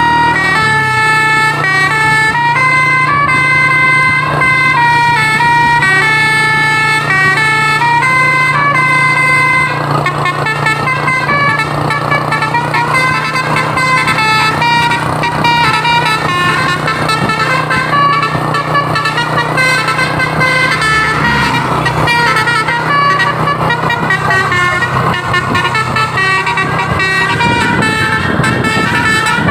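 A bus's Basuri multi-tone 'telolet' air horn playing a melody of stepped notes, clear for about the first ten seconds, over a steady low drone. After that the horn tones blur into a noisier mix of horn and traffic sound.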